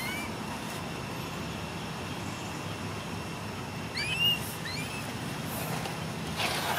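Steady low background hum with a few short, high, rising-and-falling chirping calls about four seconds in, and a brief noisy burst near the end.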